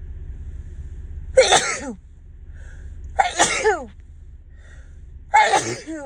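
A woman sneezing three times in a row, about two seconds apart, her voice falling in pitch at the end of each sneeze.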